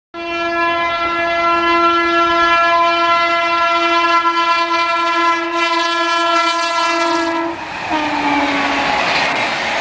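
WAP-7 electric locomotive horn sounding one long, steady blast. About eight seconds in, the horn cuts and sounds again lower and falling in pitch as the locomotive passes, followed by the rush and rattle of the express coaches going by at speed.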